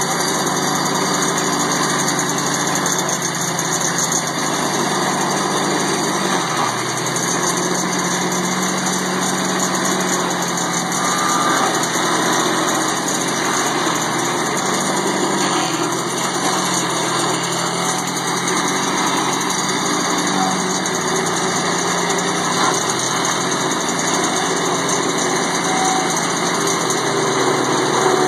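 Walk-behind stump grinder's small gasoline engine running steadily at high speed while its cutter wheel grinds into a tree stump.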